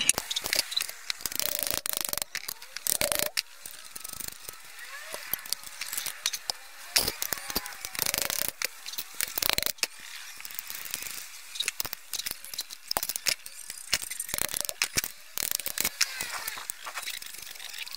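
Irregular metal clicks, clinks and knocks as steel rollers, bolts and nuts are fitted onto a welded steel bracket, with a hammer tapping a roller onto its bolt.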